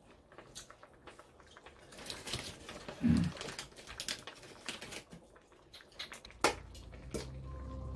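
Chopsticks clicking and tapping irregularly against the stainless steel skillet as they stir the hotpot ingredients in broth, with one sharper knock about six and a half seconds in.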